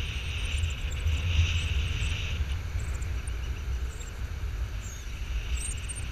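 Wind buffeting the microphone in flight under a tandem paramotor wing: a steady low rumble, with a higher hiss that fades about two and a half seconds in.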